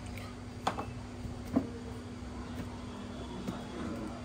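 Steady low electrical hum in a small room, with two light clicks in the first two seconds and a fainter one later.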